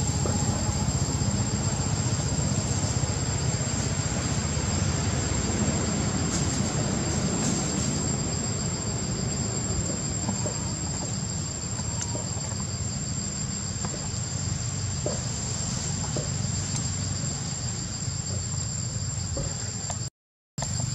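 Steady chorus of insects, a continuous high whine with a second lower buzz, over a constant low rumble. The sound drops out for half a second near the end.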